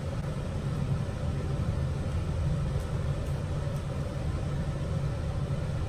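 Steady low hum and rumble of background noise, with nothing else standing out.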